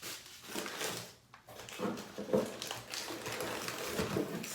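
A cardboard shipping box being opened by hand, with its packing rustling and scraping irregularly and a few short squeaks in the middle.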